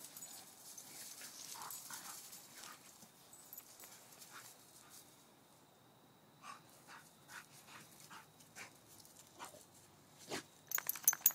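Two dogs at play, scuffling on grass, with a string of short dog whimpers and a quick run of sharp clicks near the end.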